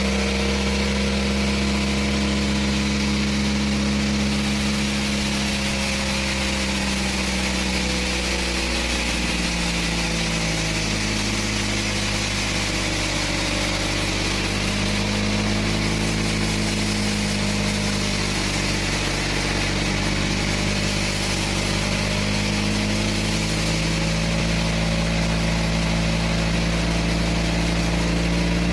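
Engine of a homemade bandsaw sawmill running steadily, its pitch dipping and rising a little, with a steady hiss over it.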